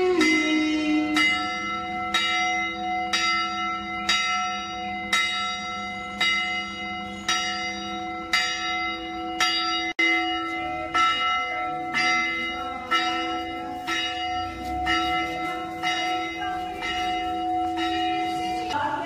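Church bell tolled in a steady rhythm, about two strokes a second, each stroke still ringing into the next.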